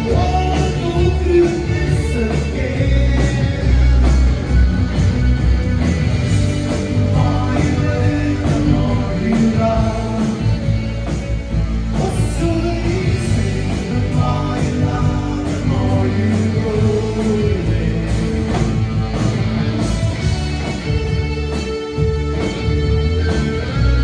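Live new wave rock band playing: a lead vocal over synthesizer keyboards, electric guitars, bass and drums.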